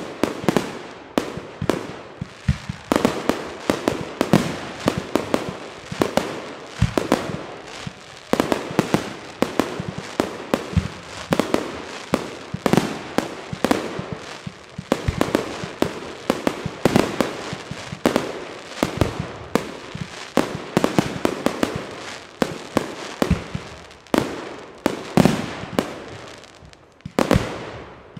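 Aerial fireworks shells bursting in quick succession: a dense run of sharp bangs, often several a second, with hardly a gap between them.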